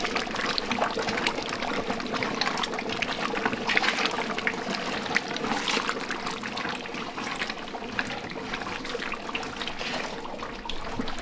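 Large metal pot of curry goat bubbling hard as a wooden paddle stirs it: a dense crackle of many small bursting bubbles and sloshing. The water is cooking off and the curry is reducing down to thick gravy, which the cook hears as the pot starting to sound more hollow.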